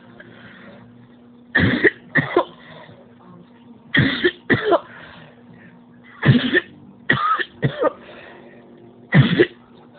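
A person coughing during a long coughing episode: loud, short coughs coming in clusters of one to three about every two to three seconds.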